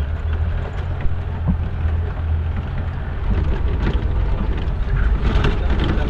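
Mahindra Thar 4x4 driving slowly over a rough dirt track, heard from inside the cab: a steady low engine hum with knocks and rattles from the bumps, more of them about five seconds in.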